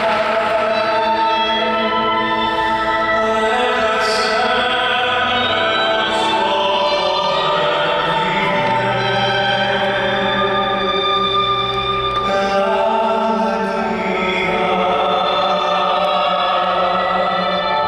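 Operatic choral music with orchestra, held voices swelling and shifting chords: the skater's short-program music played in the ice rink.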